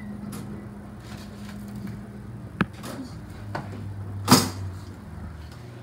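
Pop-up toaster being loaded with English muffin halves and its lever worked: a light click about two and a half seconds in, then a louder, sharper click just after four seconds in, over a low steady hum.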